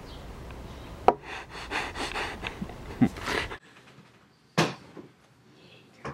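A person's short breathy puffs and a few clicks, then a quieter room with one sharp click.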